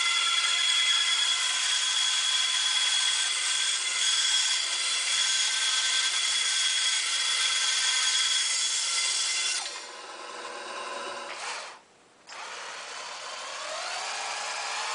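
Bandsaw cutting through a small wooden block with a steady whine, easing off about ten seconds in as the cut ends. After a brief break, a handheld power drill spins up with a rising whine and bores into the wooden stock repair piece.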